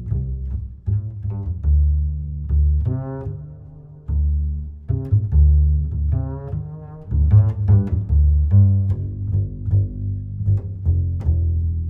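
Background music: low plucked and bowed strings, double bass and cello, playing a light rhythmic tune.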